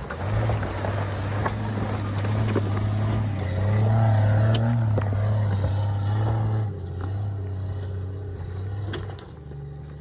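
Jeep Cherokee XJ engine pulling up a rocky dirt track close by, the note rising and falling with the throttle, with stones clicking under the tyres. It fades as the Jeep climbs away, dropping off about seven seconds in.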